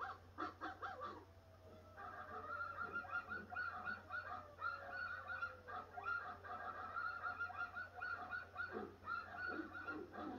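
Cartoon dogs barking in an animated film, played through a TV's speakers. There are a few separate barks at first, then from about two seconds in a dense chorus of many dogs yapping at once.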